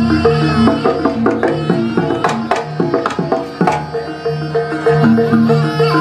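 Live Javanese jaranan music: hand-drum strikes over repeating held pitched notes from the accompanying ensemble.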